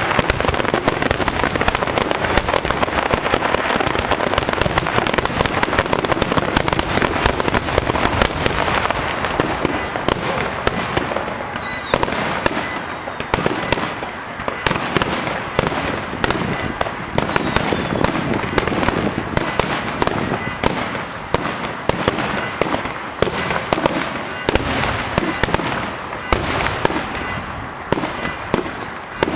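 Fireworks display going off: dense, rapid crackling and banging for the first nine seconds or so, then separate sharp bangs and crackles following one another at short, irregular intervals.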